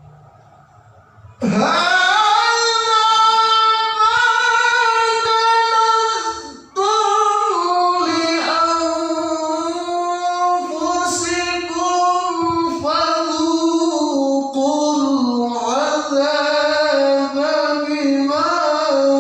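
A man reciting the Qur'an in the melodic qiroah style: long, ornamented held notes in a high register, starting about a second and a half in. There is one short break for breath about six and a half seconds in, and the pitch settles lower toward the end.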